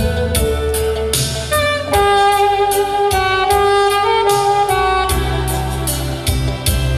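Saxophone playing a slow melody of long held notes over a backing track with a steady drum beat and bass.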